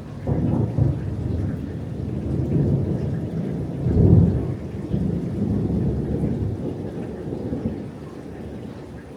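Thunder rumbling in a rainstorm: a crack just after the start, a louder peal about four seconds in, then a long low rumble that fades near the end, with rain hissing faintly underneath.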